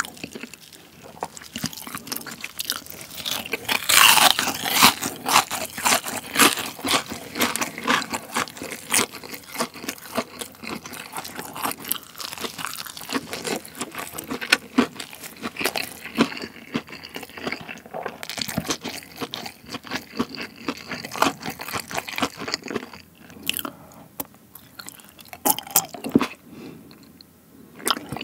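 Close-miked crunching and chewing of a deep-fried breaded pork cutlet roll, crisp crunches coming thick and fast, then thinning to a few scattered clicks over the last few seconds.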